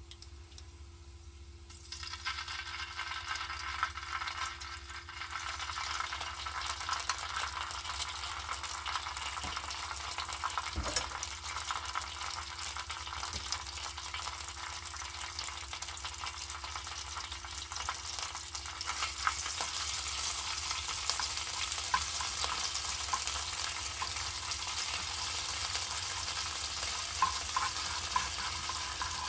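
Food sizzling in a hot frying pan as it is stir-fried and stirred, starting suddenly about two seconds in and getting fuller and louder later on, with small scraping clicks.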